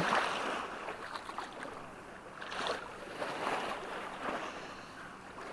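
Small sea waves lapping and splashing in the shallows, coming in several soft, irregular swells.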